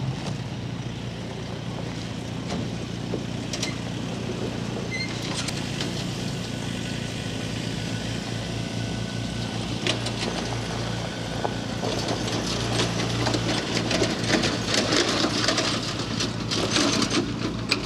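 An engine running steadily with a low, even hum. A scratchy crackling noise grows louder over the last six seconds.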